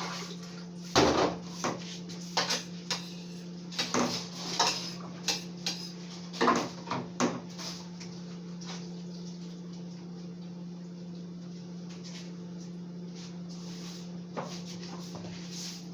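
Knife and dishes clattering while raw chicken is cut up: a run of irregular knocks and clinks over the first seven seconds or so, then a steady low hum with one more knock near the end.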